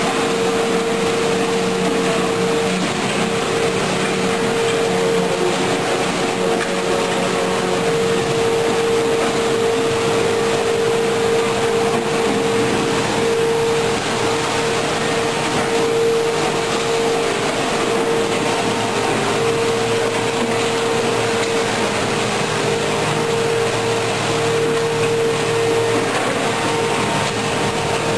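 Steady, loud drone of tunnel construction machinery: an even rush of noise under a constant mid-pitched hum that does not change.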